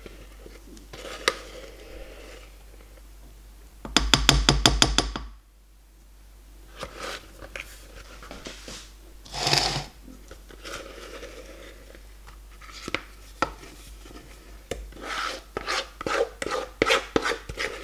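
Spatula scraping cake batter out of a mixing bowl into a metal bundt pan, with repeated scrapes and ticks against the bowl that come thick and fast near the end. About four seconds in, a loud quick run of clicks lasts just over a second.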